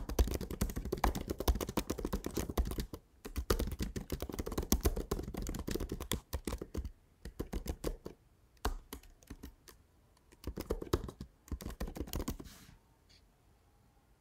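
Typing on a computer keyboard: a fast continuous run of key clicks for about seven seconds, then a few shorter bursts of keystrokes with pauses between them.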